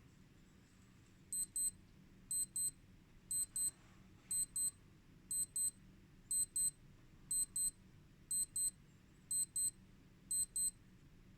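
Casio G-Shock Mudman G-9300 wristwatch alarm sounding: short, high-pitched double beeps, one pair about every second, ten pairs in all, starting about a second in and stopping near the end.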